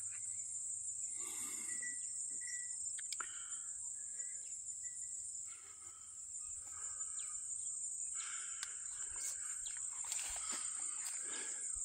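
Outdoor summer garden ambience: a steady high-pitched insect drone, a few short chirps, and leaves and vines rustling and clicking as a hand moves through the squash plants in the last few seconds.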